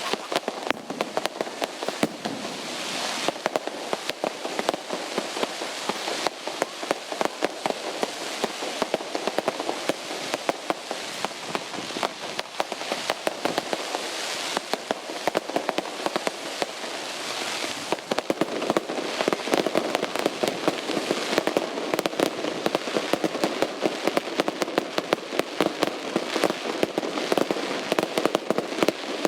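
Fireworks display going off continuously: a dense barrage of sharp pops and bangs over a constant crackling.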